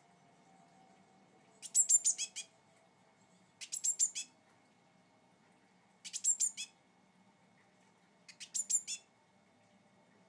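Young blue tit calling: four short bursts of rapid, very high notes, about two seconds apart.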